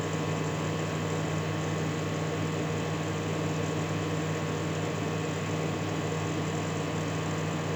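Microwave oven running during a one-minute heating cycle: a steady, even hum.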